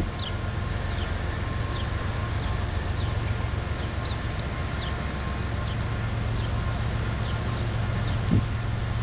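Steady low rumble of a Ferromex diesel train running, with a bird giving short falling chirps over it about once or twice a second. A brief knock sounds near the end.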